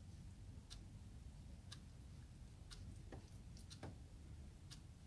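Faint ticking, about one tick a second, over near-silent room tone.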